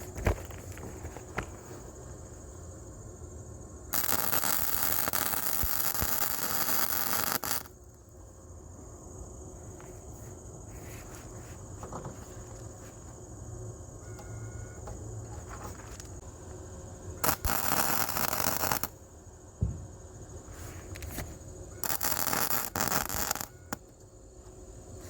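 Flux-core wire welder (Harbor Freight Titanium 125) arc crackling and hissing in three short welds: one of about three and a half seconds, then two of under two seconds each near the end, as a wide crack in a mower cutting deck is filled.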